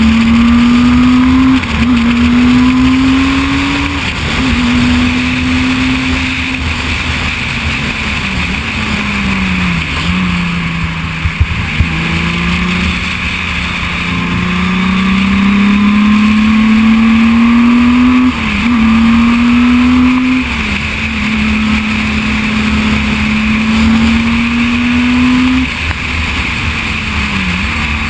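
Onboard sound of a Reynard single-seater's 3.5-litre V6 race engine, pulling up through the revs and dropping sharply at several upshifts. Near the middle the revs fall away and dip, then climb steadily again.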